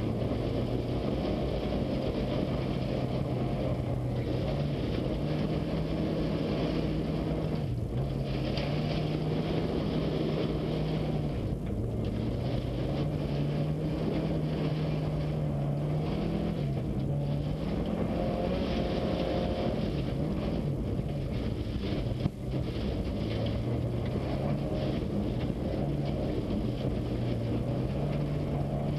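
Subaru Impreza's flat-four engine heard from inside the car while it is driven over snow and ice, its pitch climbing and dropping again and again as it revs and changes gear, over steady tyre and road noise. A single sharp knock about three quarters of the way through.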